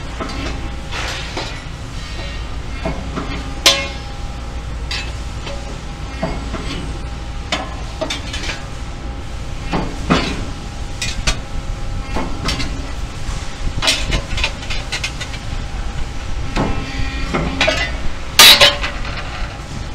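Press brake running with a steady machine hum, while sheet-metal parts knock and clank against the tooling and bed as they are positioned and bent. A loud clank comes near the end as a bent piece is lifted out.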